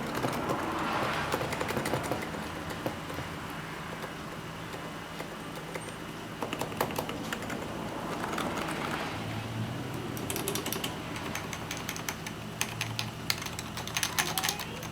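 Typing on a Topre electrostatic-capacitive keyboard, the keystrokes soft and scattered at first, then a quick run of clicking from about ten seconds in.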